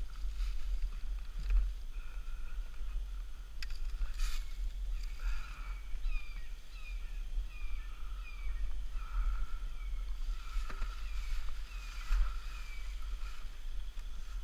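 Wind and handling rumble on a helmet-mounted microphone, with a few clicks. A series of short, high, falling chirps repeats about twice a second through the middle, and no engine is running.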